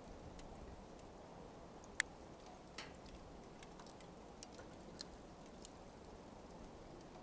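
Burning coals crackling faintly: scattered sharp pops and ticks over a low, steady background, the loudest pop about two seconds in.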